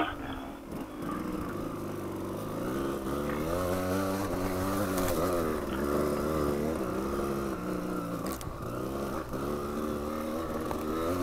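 Dual-sport motorcycle engine pulling through rough off-road going, the revs rising and falling repeatedly as the throttle is worked. A sharp knock right at the start.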